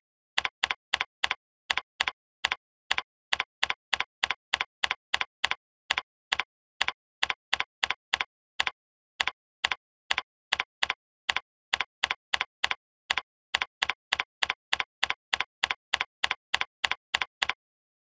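Computer keyboard typing: about fifty identical key clicks at roughly three a second, unevenly spaced, with dead silence between them. The clicks stop about half a second before the end.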